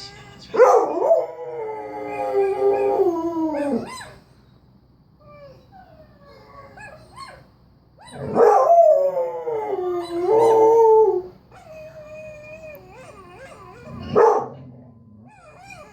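Dog howling: two long, loud howls, one starting about half a second in and one about eight seconds in, each sliding down in pitch at the end, with fainter wavering howls between them and near the end.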